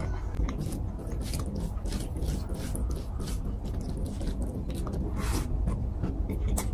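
Close-miked chewing with lip smacks: a quick run of short wet clicks and crunches.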